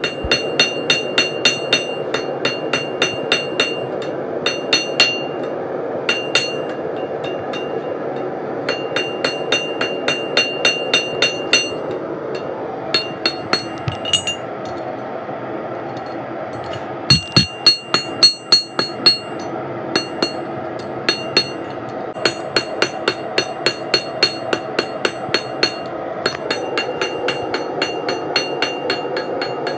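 Hand hammer forging steel on an anvil: runs of blows at about three a second with short pauses, each strike ringing, with a few heavier blows about two thirds of the way through. A steady roar of the propane forge's burners runs underneath.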